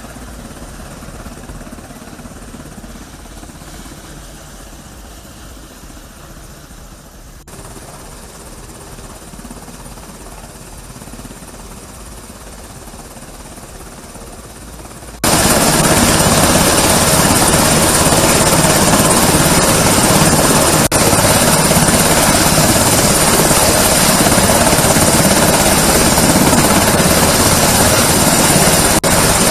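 Helicopter noise. It is fairly quiet and steady at first, then about halfway through it jumps abruptly to a loud, close, steady rotor and engine noise that holds to the end.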